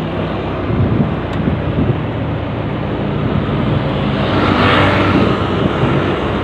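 Motorcycle engine running while the bike picks up speed slowly at low road speed, with wind rushing over the microphone and swelling a little about halfway through.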